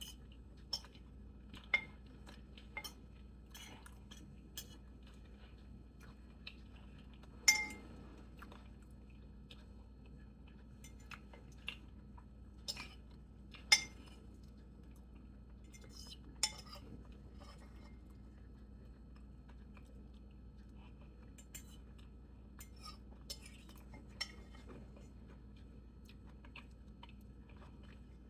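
Cutlery clinking and tapping against a plate while eating: scattered sharp clinks every second or two, the loudest about seven and a half and fourteen seconds in.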